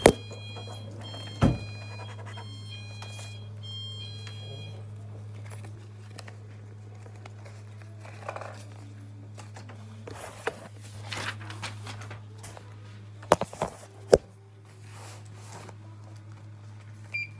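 Handling knocks and thumps, the sharpest at the very start and twice close together near the end, with a metallic jingle of short ringing tones in the first few seconds, over a steady low electrical hum.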